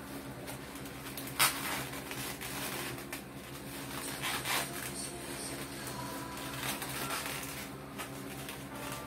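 Rustling and rubbing of balloons being handled as a latex twisting balloon is wrapped around a foil number balloon, with a few brief squeaks and a sharp tap about a second and a half in. A steady low hum runs underneath.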